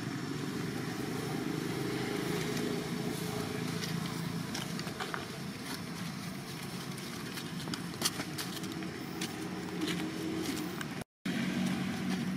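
Steady low outdoor rumble of distant engine traffic with faint shifting engine tones, dotted with small clicks and rustles. The sound cuts out for a moment near the end.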